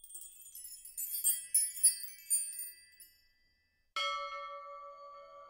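Intro jingle: a flurry of high tinkling chime notes for about three seconds, a short gap, then a held electronic chord that starts suddenly about four seconds in.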